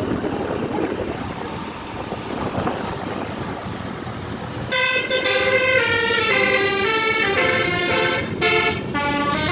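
Engine and road rumble; about halfway through, a bus's telolet basuri horn starts playing a quick melody of changing notes.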